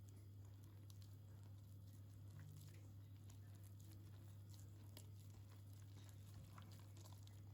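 Near silence: room tone with a steady low hum and a few faint, scattered ticks.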